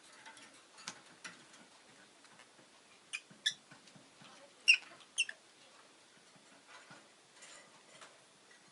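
Rosy-faced lovebird giving short, sharp, high chirps in three pairs, the loudest about halfway through.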